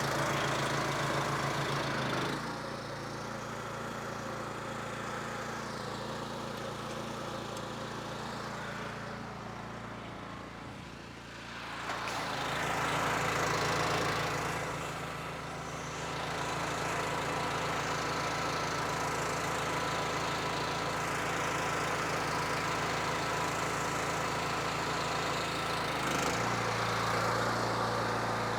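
Honda GX390 single-cylinder engine running a belt-drive pressure washer, drawing water from the buffer tank. The engine note shifts about 2 seconds in, again after a short dip in loudness near the middle, and once more near the end.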